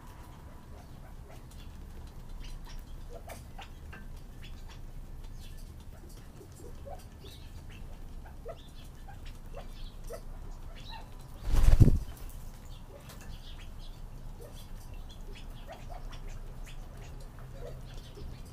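Quails at a feeder: scattered small ticks and faint short chirps, then a brief loud whirr of flapping wings about twelve seconds in.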